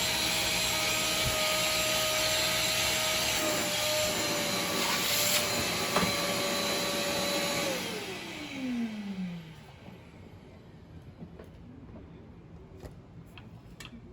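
Wet-and-dry vacuum cleaner running with a steady whine, then switched off about eight seconds in, its motor winding down in a falling tone over the next second or two. A few faint clicks follow.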